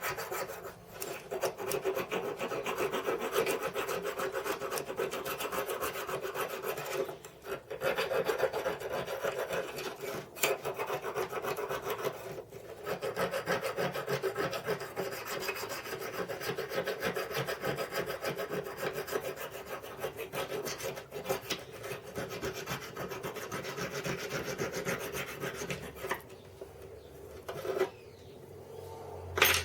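Metal being hand-filed in fast, continuous back-and-forth strokes with a few short pauses, smoothing a mini lathe carriage clamp part after angle-grinder cuts. The filing stops a few seconds before the end, followed by a single sharp knock.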